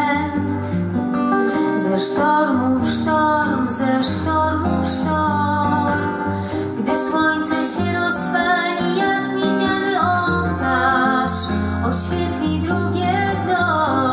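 Live acoustic ballad: acoustic guitars strummed and picked, with a woman singing a wavering melody over them.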